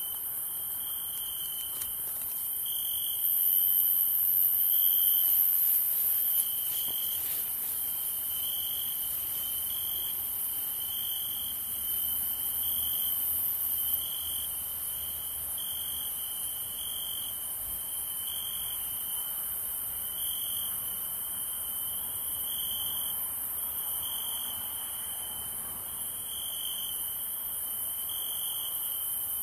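Night-time chorus of crickets chirping: one chirp repeats in a steady rhythm about every one and a half seconds, over a continuous high hiss from other insects.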